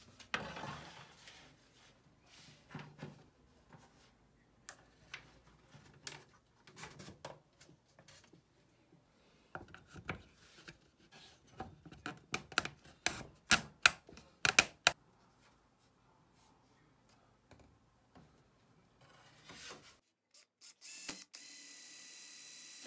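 Scattered knocks and clicks of wood pieces and tools being handled on a workbench, loudest in a quick run of sharp clicks about halfway through. Near the end a Dremel rotary tool starts up with a steady high whine, drilling a small hole in a board.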